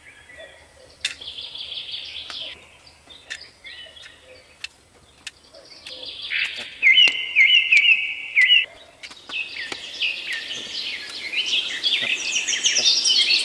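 Small songbirds chirping in quick repeated phrases, sparse at first and busier and louder in the second half, with a few faint light clicks scattered through.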